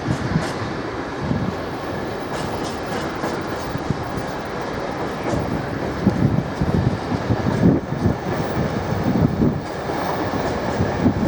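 A train running on the rails: a steady rumble of wheels on track, with irregular wheel thumps and clatter over the rail joints getting stronger about halfway through.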